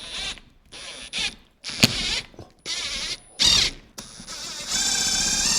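A power drill/driver, run in short trigger bursts and then a longer steady run near the end, driving a screw that spins without catching because it has no wall anchor to bite into.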